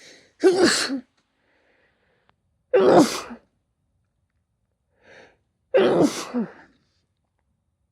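A person sneezing three times in a row, each loud sneeze about two and a half to three seconds after the last, with a short, quieter breath in before the first and third.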